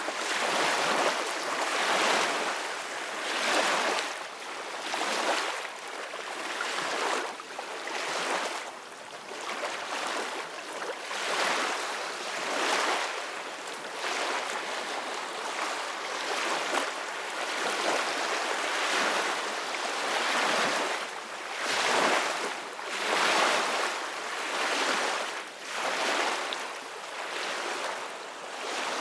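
Ocean waves washing in, a continuous noisy rush that swells and ebbs every second or two.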